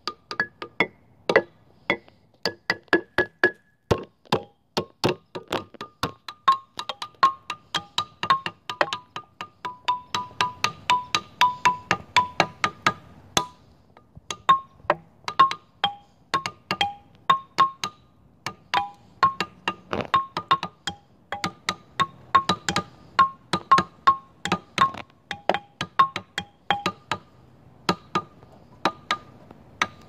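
Outdoor xylophone (a Nature Notes Xylophone) struck with mallets by two players: rapid, irregular strikes, several a second, on a handful of bright notes that each ring briefly.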